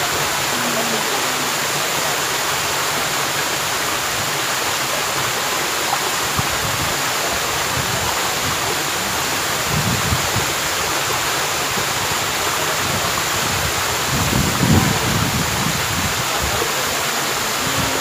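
Waterfall pouring down a rock face and splashing into a pool: a steady rushing hiss, with a brief low rumble about ten seconds in and another about fifteen seconds in.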